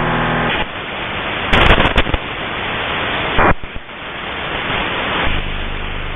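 Shortwave radio receiver hiss and static between stations: a brief buzzing tone at the start, then loud crackling bursts about a second and a half in and again near the middle.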